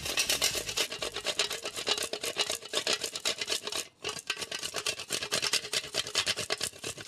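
A bar of chocolate grated on a flat metal hand grater, rapid rasping strokes with a brief pause about four seconds in.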